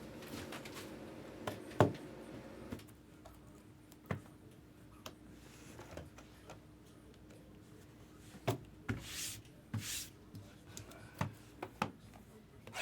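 Cardboard card box and its packaging being handled: scattered light taps and clicks, the loudest about two seconds in, with a couple of brief rustles past the middle.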